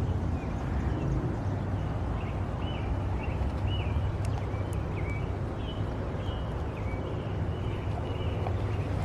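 A small bird chirping repeatedly, short high calls a few times a second, over a steady low outdoor rumble.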